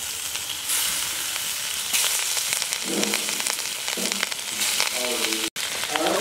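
Hilsa fish steaks frying in hot oil in an iron pan: a steady sizzle that grows louder as new pieces are slid in, about one and two seconds in.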